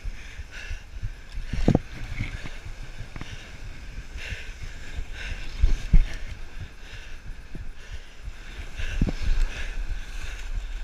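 Wind rumbling on the microphone with surf washing over rocks, and a few dull knocks about two, six and nine seconds in.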